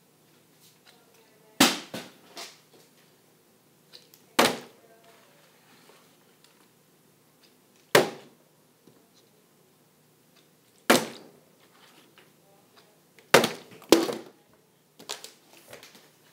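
Plastic water bottle being flipped and landing again and again, a knock each time it hits: about every three seconds at first, then several close together near the end.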